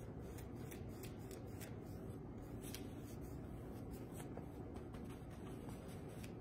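Faint scratchy brushing of a large paintbrush against canvas as acrylic paint is spread in many short, irregular strokes, over a low steady room hum.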